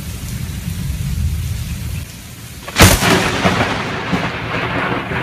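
Thunder rumbling during a lightning storm. About three seconds in comes a sudden, loud, sharp thunderclap, followed by a heavier rumble.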